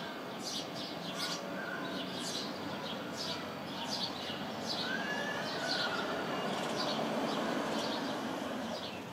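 House sparrows chirping: a run of short, high chirps, about two or three a second, over a steady outdoor background hiss.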